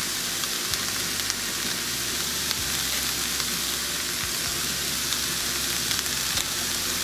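Shredded cabbage, onion and garlic sizzling steadily in oil in a pan on medium-low heat, with a few faint clicks.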